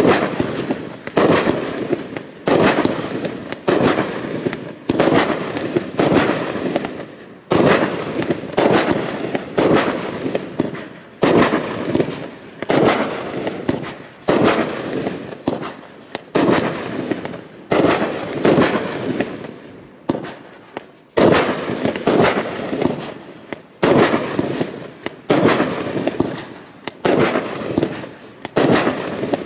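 Fireworks battery of shot tubes (a CE Category F3 cake) firing shot after shot at an even pace, roughly one every second and a quarter, each a sharp report that dies away before the next.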